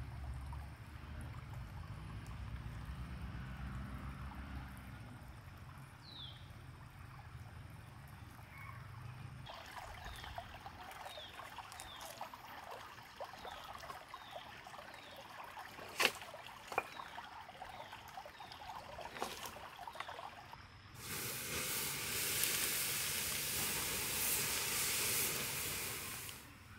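Flowing stream water, with a run of short falling chirps and a few clicks in the middle. For the last few seconds a louder, hissing rush of water takes over, then stops just before the end.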